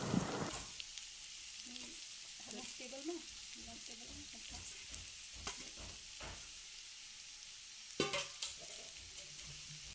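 Raw bamboo shoots sizzling faintly in a hot oiled non-stick pan, with a few soft knocks as more shoots are dropped in and moved about, the loudest about eight seconds in.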